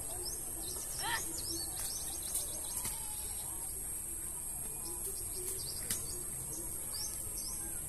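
Outdoor ambience of small birds chirping in quick short notes over a steady high insect buzz, with a few sharp knocks.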